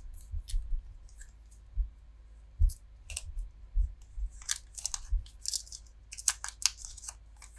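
Pokémon trading cards handled and flicked through one by one: short crisp card slides and snaps, busier in the second half, with soft bumps against the wooden desk.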